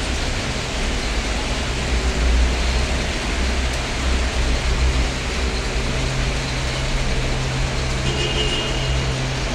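Steady rain falling on a wet street, over the low hum of vehicles driving through the water. A brief high beep sounds about eight seconds in.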